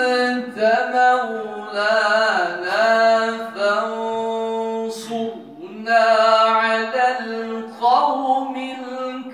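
A man reciting the Qur'an in a melodic, sung style, holding long drawn-out notes with ornamented glides. A brief break comes about halfway through before the next phrase. The voice is amplified through a handheld microphone.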